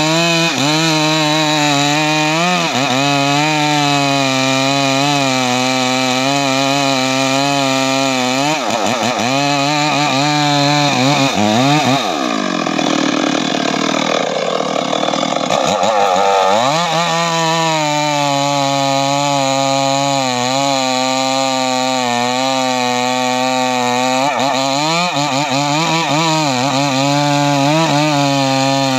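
Stihl MS 382 two-stroke chainsaw running at high revs and cutting teak wood. Its engine pitch dips several times as the chain bogs down in the cut, most deeply about halfway through.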